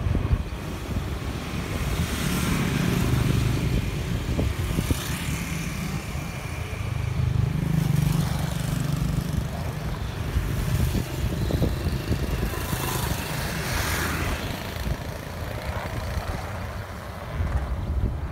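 Street traffic, mostly motorbikes passing on the road, their engine hum swelling and fading as each goes by, over a steady low rumble.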